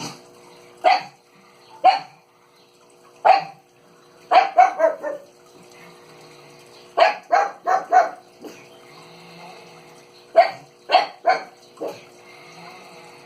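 A dog barking in short sharp barks, some single and some in quick runs of three or four, over a faint steady hum.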